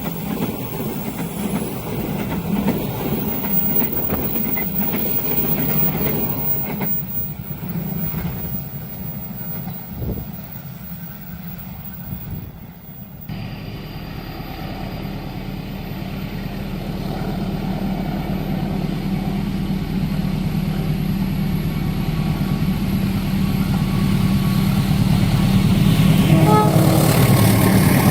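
A passing train's noise fading away, then a diesel-hauled train's engine running with a steady low hum that grows louder as it approaches.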